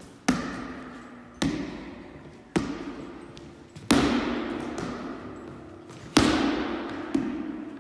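A ball smacking off the forearms in repeated volleyball dig passes, six sharp hits about a second apart with a longer pause before the fifth. Each hit rings out in a long echo in the large, hard-walled hall.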